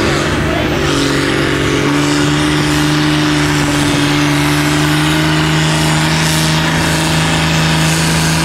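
Modified pulling tractor's diesel engine running hard under full load as it drags the weight-transfer sled. Its pitch shifts up in the first two seconds, then holds steady.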